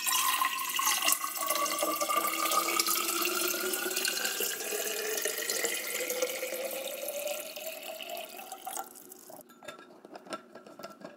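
Water pouring in a thin stream into a stainless-steel insulated water bottle, the ringing pitch inside rising steadily as the bottle fills. The pour stops about nine seconds in, and a few clicks follow as the plastic cap goes on.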